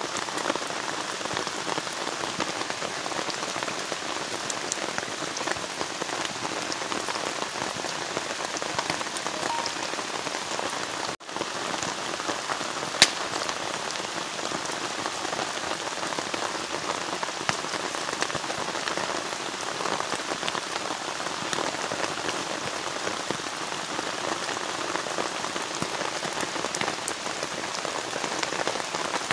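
Steady rain falling, a dense patter of drops, broken by a brief drop-out about eleven seconds in and one sharp tap a couple of seconds later.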